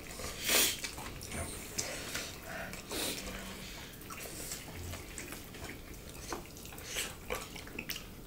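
Close-up eating sounds from two people eating rice and pork with their hands: chewing and mouth smacks, with fingers squishing food on the plates. It comes as irregular short clicks and smacks, the loudest about half a second in.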